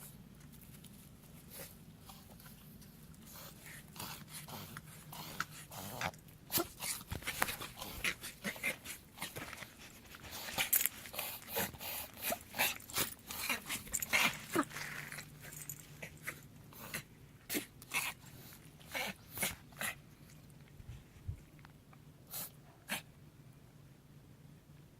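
A dog reverse sneezing: a run of quick, sharp inhalations through the nose, several a second, thickest about midway, then thinning out to single ones with gaps and stopping near the end.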